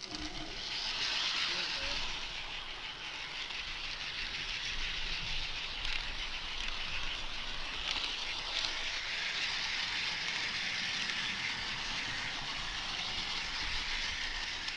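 Steady rushing hiss of an HO-scale model train rolling along the track, heard close up from a camera riding on the train.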